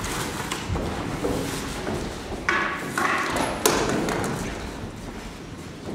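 Knocks and thumps on a wooden stage as people walk off and stage furniture is moved, with three sharp knocks about halfway through, the last the loudest.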